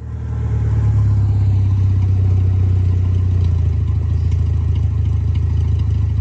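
Engine of a cut-down little Ford car running steadily at a low, even pitch. It comes in abruptly at the start and holds a constant level.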